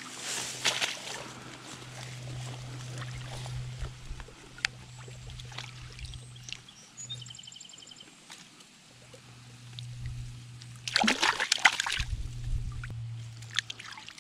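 Stream water splashing and trickling, with a burst of loud splashing about eleven seconds in. A short high chirping trill comes near the middle.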